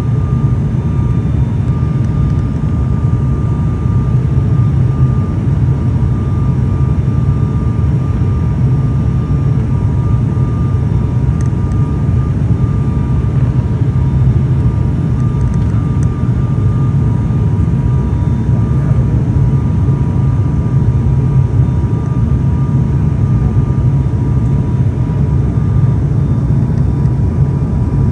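Cabin noise of an ATR-72 turboprop in flight on approach: a loud, steady low drone from the engines and propellers, with two steady high whining tones above it.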